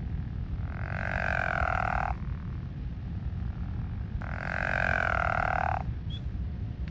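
Two trilled frog calls, each lasting about a second and a half, the second starting about three and a half seconds after the first, over a steady low background rumble.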